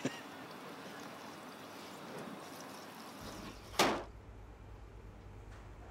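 A fuel fire burning in a tray, then an Elide Fireball fire-extinguishing ball going off with a single sudden loud bang about four seconds in, as its dry chemical powder bursts out over the flames.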